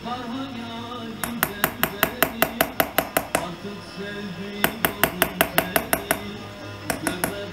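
Small chasing hammer tapping a steel punch against a silver repoussé piece. The taps come in quick runs of about six a second: a run of about a dozen, a short pause, a run of about eight, then two more near the end. Background music plays underneath.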